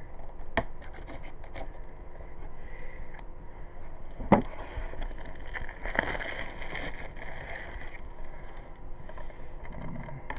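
A DVD case and its packaging being opened by hand: scraping and crackling handling noise with scattered clicks, and a sharp snap about four seconds in.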